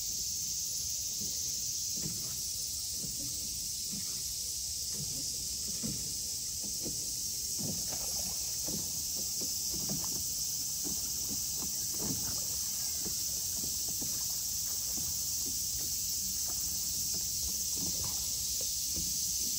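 Steady high-pitched drone of summer cicadas, with soft irregular footsteps of someone walking.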